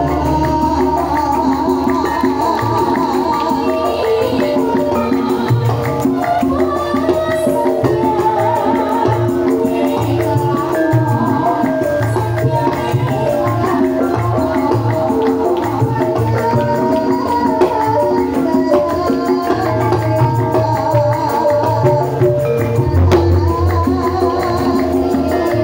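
Javanese gamelan music with melodic metallophone lines over a steady hand-drum beat.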